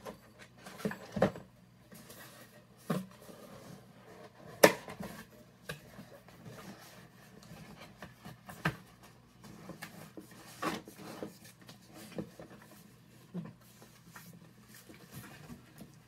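Small objects and packaging being handled and set down on a table: scattered knocks and clicks, the loudest about four and a half seconds in, with light rustling between them.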